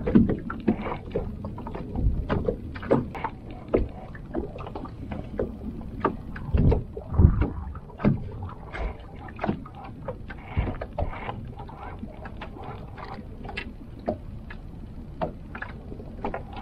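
Irregular clicks, knocks and a few heavier low thumps on a small fishing boat, over a steady low rumble.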